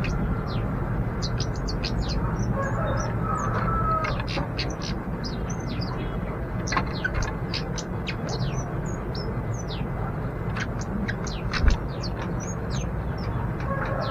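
Orange-headed thrush (kemade) singing: a long, fast run of short, sharp, high notes of varied pitch. A steady low rumble runs underneath.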